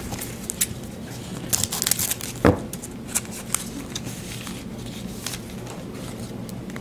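Crinkling and light tearing of a trading-card pack wrapper, with scattered clicks of cards being handled; the crinkles are thickest from about one and a half to two and a half seconds in.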